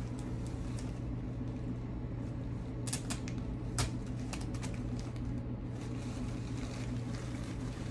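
Steady low hum with a few small clicks and rustles as artificial roses are handled, the two sharpest clicks about three and four seconds in.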